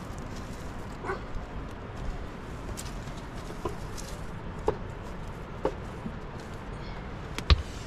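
A dog giving short, separate barks and yips about once a second over a steady rushing background, with a sharp knock near the end.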